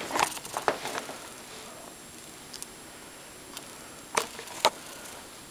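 Bare feet stepping on carpeted stairs, heard as soft steps with sharp knocks: a cluster of them in the first second and two louder ones about four seconds in.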